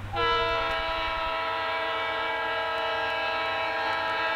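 Multi-chime air horn of an approaching Wisconsin Central diesel locomotive sounding one long, steady chord. It starts just after the opening, over a low engine rumble.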